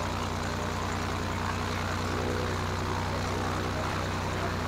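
Turbocharged Lycoming piston aircraft engine running steadily on the ground with its propeller turning and the cowling off, a steady drone during a ground run for propeller balancing.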